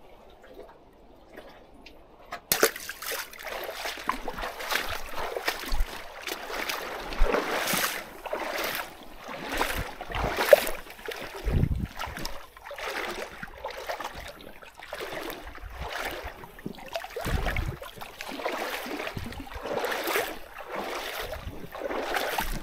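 Small waves sloshing and splashing against shoreline rocks in repeated washes every second or two. They start suddenly about two and a half seconds in, after a quieter stretch.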